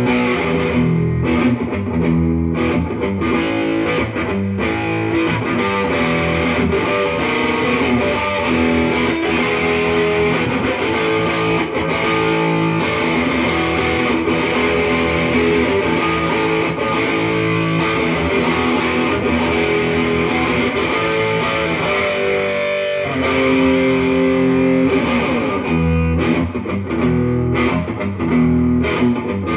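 PRS SE McCarty 594 electric guitar played through an amplifier: a continuous passage of chords and riffs, its tone coloured by effects.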